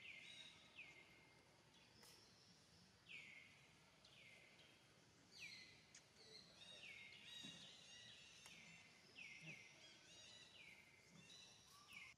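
Faint birdsong: many short high calls, each sliding quickly down in pitch, repeating about once a second and overlapping in places.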